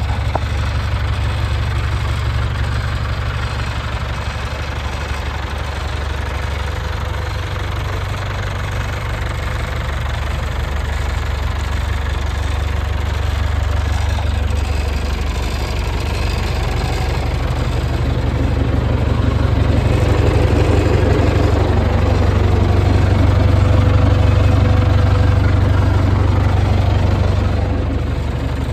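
1975 International 574 tractor engine idling steadily, growing louder past the middle and easing off near the end.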